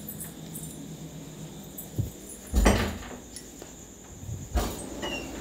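Dull knocks from handling around a plastic foot spa tub: a light click about two seconds in, then two louder low thumps, over a faint steady hum.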